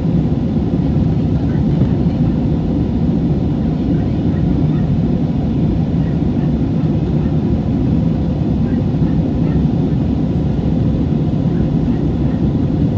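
Steady in-cabin noise of an Airbus A320 airliner climbing after takeoff: an even, deep rumble of engines and rushing air, with faint steady hums above it.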